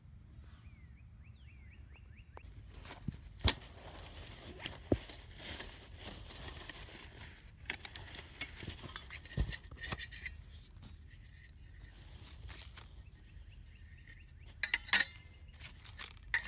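Stainless steel wood gasification camp stove being handled and its pieces fitted together: scattered metal clinks and scrapes among knocks, the sharpest clinks near the end.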